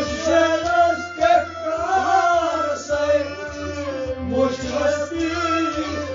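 Male voice singing a Kashmiri Sufi song in long, bending melodic lines, over instrumental accompaniment with a steady low drone and percussion strokes.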